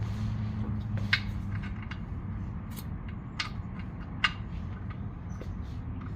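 Scattered light clicks and taps, a few seconds apart, as the oil drain plug is put back in, over a low hum that stops about one and a half seconds in.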